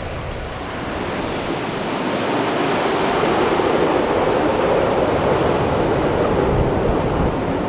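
Twin-engine jet airliner on landing approach passing low overhead, gear down. The engine roar builds over the first few seconds, is loudest in the middle, and eases slightly near the end.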